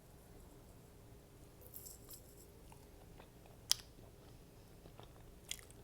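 Close-miked eating sounds: quiet chewing with a few crisp crunches and sharp mouth clicks. The loudest click comes a little past the middle.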